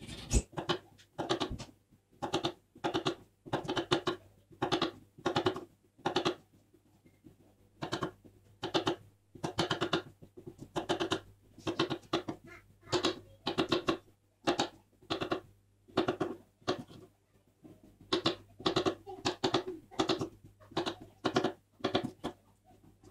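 Knife chopping capsicum (bell pepper) into square pieces on a cutting board: a steady run of sharp cuts, about two a second, with a brief pause partway through.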